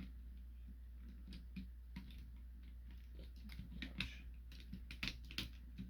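Faint scattered clicks and taps of plastic Transformers figure parts being handled and fitted together as a combiner limb's connector is pushed into place, over a steady low hum.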